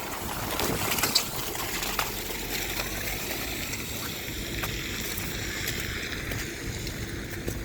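Wind on the microphone over steady outdoor noise in a snowstorm, with a few light knocks.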